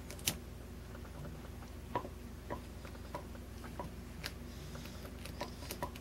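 Faint, irregular clicks and ticks of a lock pick working the pins inside a 50mm Chubb padlock held under a tension wrench, about eight clicks spread over several seconds.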